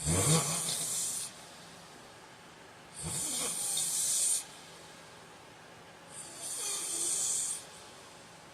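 A heavy-set man snoring in his sleep: three long, hissing breaths about three seconds apart, the first two opening with a low rumble.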